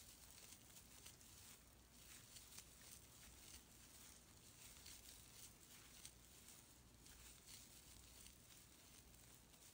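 Near silence, with faint irregular rustling and light ticks of a metal crochet hook working fluffy acrylic scrubber yarn, over a low steady hum.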